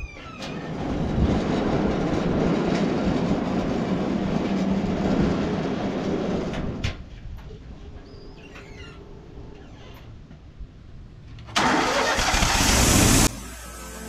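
Wood-Mizer LT40 band sawmill running, its engine and band blade loud for about the first seven seconds, then dropping to a quieter idle. Near the end comes a short, loud hiss lasting under two seconds.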